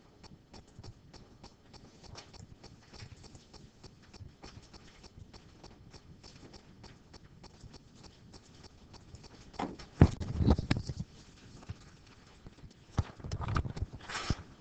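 Irregular light clicks and knocks of people moving and handling things in a classroom, with two louder spells of bumping and rustling, about ten seconds in and again near the end.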